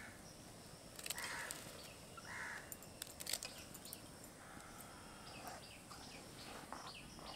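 Crows cawing faintly about four times, with a few light clicks.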